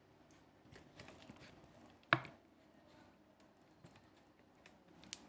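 Light clicks and taps of a small diecast airliner model being handled and turned over, with one sharp knock about two seconds in.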